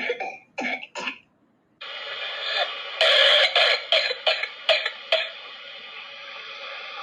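Whooping cough (pertussis) coughing: a few short coughs, then after a brief pause a rapid string of coughs in quick succession, a paroxysm typical of pertussis, over a steady background hiss.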